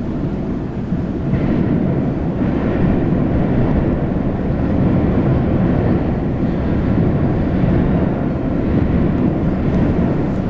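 Bakerloo line tube train heard rumbling in the tunnel while out of sight, a low steady rumble that grows louder over the first few seconds and then holds.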